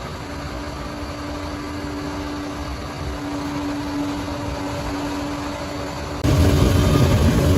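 Diesel engine of heavy earthmoving equipment running steadily, with a steady hum over it. About six seconds in, the engine sound jumps suddenly louder and deeper.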